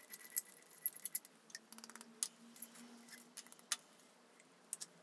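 Spatula scraping and tapping inside a glass flask to knock dry tin(IV) iodide crystals out into a glass beaker: quick, irregular light clicks and glassy tinkles that thin out near the end.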